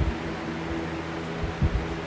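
Lasko B20301 20-inch box fan running at full speed: a steady rush of air with a low motor hum, broken by a few short low thumps.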